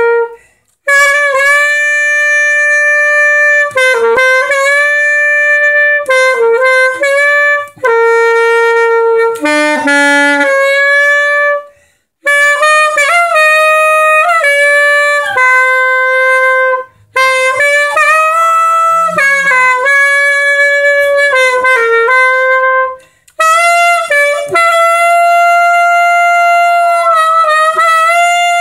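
Alto saxophone playing a melody of long held notes in several phrases with brief pauses between them. Near the end a small pinscher dog howls along with the high notes.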